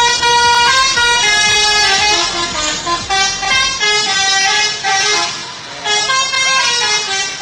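Indonesian bus 'telolet' musical air horn playing a fast melody of stepped notes, breaking off briefly about six seconds in.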